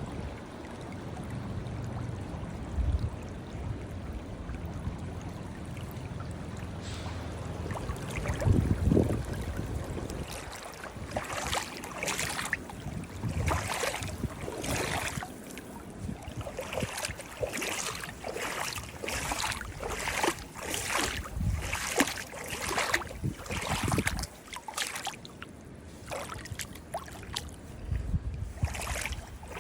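Moving water splashing and trickling in an irregular run of small splashes. Low wind rumble on the microphone is heard through roughly the first third.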